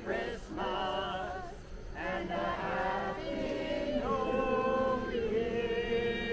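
A group of carolers singing a Christmas carol together, holding a long note through the last couple of seconds.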